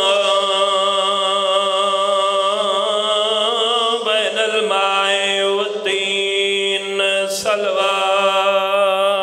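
A man's voice chanting long, drawn-out notes with a wavering pitch, a melodic recitation into a microphone. It breaks off briefly about four and six seconds in, and there is a short click about seven seconds in.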